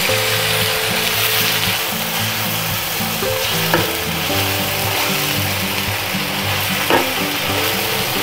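Carne asada (beef) frying in hot oil, a steady sizzle, with two sharp clicks, one near the middle and one near the end.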